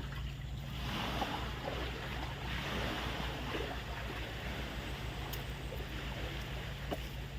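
River water rushing steadily, with a steady low hum underneath.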